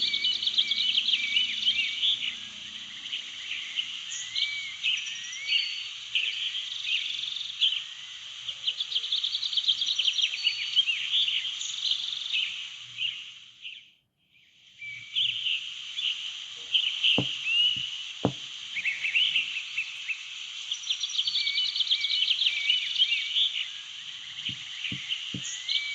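Dense chorus of many small birds chirping and twittering over a steady hiss. It fades out about halfway through and fades back in a second later. A few soft low knocks come in the second half.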